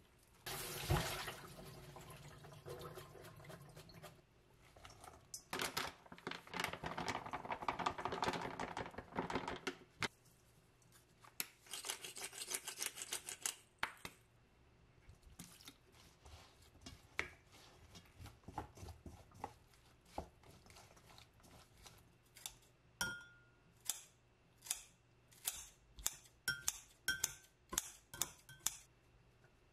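Kitchen prep noises: two long stretches of rustling and handling in the first ten seconds, with chives in a plastic colander and a stainless mixing bowl. A pepper mill is turned over the bowl. In the last several seconds comes a quick run of sharp snips as kitchen scissors cut kimchi in a glass cup.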